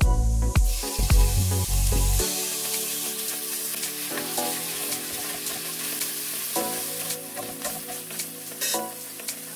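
Strips of food frying in hot olive oil in a ceramic-coated pan, sizzling steadily from about two seconds in as they go into the oil, and stirred with a wooden spatula. Background music with a heavy bass beat fills the first two seconds and carries on more quietly under the sizzle.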